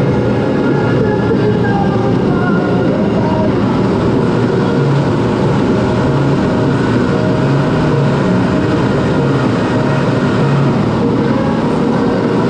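Steady cockpit noise of a CT-114 Tutor jet trainer in flight, heard inside the canopy: its single J85 turbojet running and air rushing past, with faint wavering whine tones over the roar.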